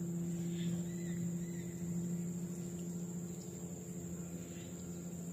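Insects droning steadily at a high pitch, over a steady low hum.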